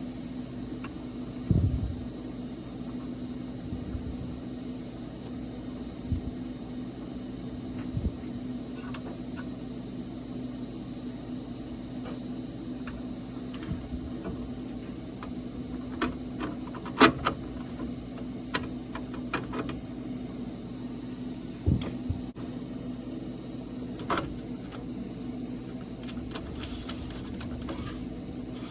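Steady low mechanical hum with scattered clicks, taps and a couple of low thumps from parts and tools being handled during valve replacement, with a quick run of clicks near the end.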